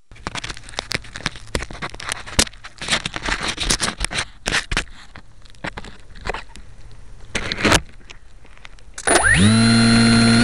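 Irregular knocks, clicks and rustles close to the mounted keychain camera's microphone as the plane is handled, then about nine seconds in the aircraft's Cosmotech CT1811-2000 brushless electric motor spins up in a quick rising whine and settles into a steady high-pitched drone.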